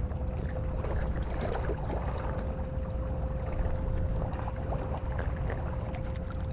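Motorboat engine out on the water, running at a steady hum, with wind rumbling on the microphone.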